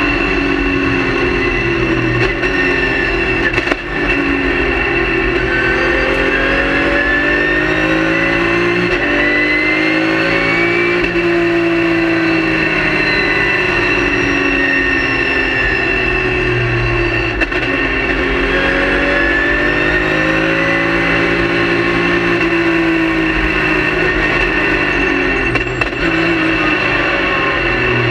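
Race car engine heard from inside the cockpit, pulling up through the revs on the straights and falling away under braking, over and over, with a steady high whine throughout. Its note briefly dips about four seconds in, again past the middle and near the end.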